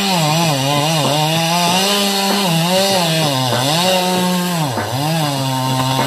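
Gas chainsaw running at high speed as it cuts wood, its pitch rising and falling repeatedly, with a couple of deeper dips where the engine speed sags.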